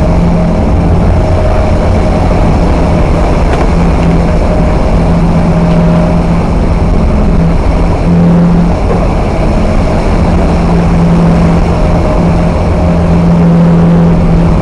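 A ship's engines drone steadily at one low pitch, under a loud rush of wind and sea.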